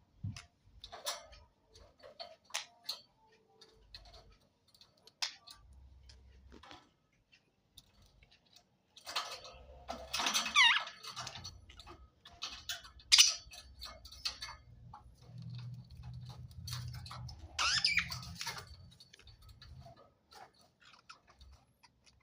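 Pet parrots making scattered small clicks and ticks, with a few short, gliding chirps in the middle and again later.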